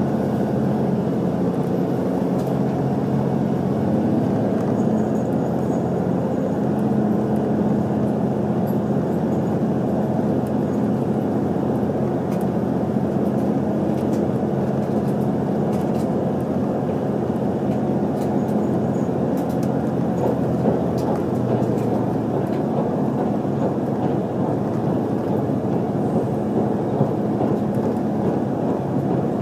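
Cabin running noise of an HC85 hybrid diesel-electric train under way: a steady rumble with a low hum, and faint clicks here and there.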